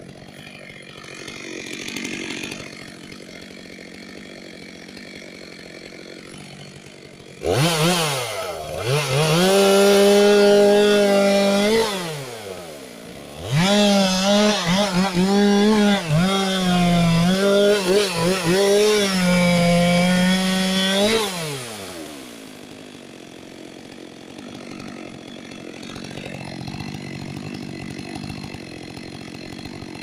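Two-stroke chainsaw run up to full throttle: it revs up sharply and holds high for a few seconds, drops back, then revs high again for about eight seconds with repeated brief dips in speed before falling back. Before and after, it runs much quieter, at a low idle.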